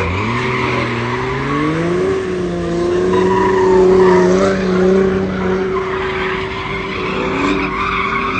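A car spinning donuts: the engine revs up over the first two seconds and is then held at high revs while the rear tyres squeal and skid on the asphalt.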